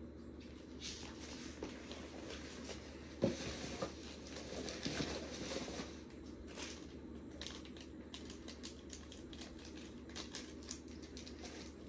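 Quiet packaging handling: a nylon carry bag and a flat cardboard box being moved, with rustling and scattered light taps and scrapes. A sharper knock comes about three seconds in. A small plastic bag of parts crinkles near the end.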